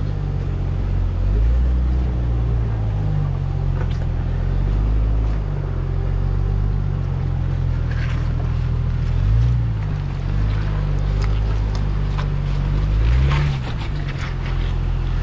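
Jeep engine running at crawling speed on a rough rocky trail, its note swelling briefly twice as it is given throttle, about halfway through and again near the end. Scattered knocks and clicks in the second half.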